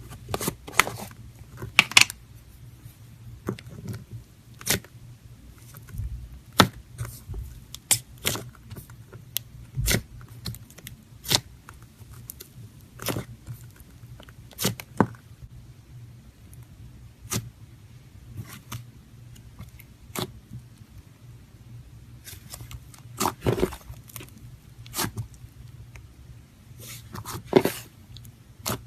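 Slime being squeezed and poked by hand, giving irregular sticky pops and clicks, some in quick clusters, over a faint low hum.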